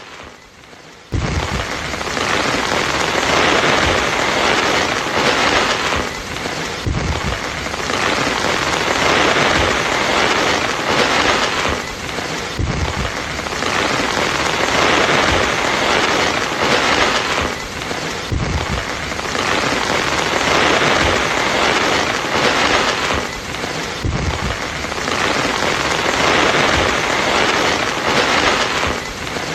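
Heavy rain pouring down in a steady loud hiss, with a brief break and a low knock about every six seconds.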